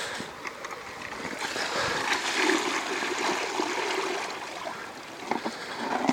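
Running river water: a steady rushing that swells for a few seconds and then eases, with a few faint knocks near the end.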